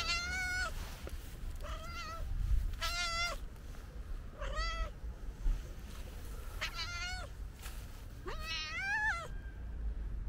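Calico cat meowing six times, short calls a second or two apart; the last meow is longer, rising then falling in pitch.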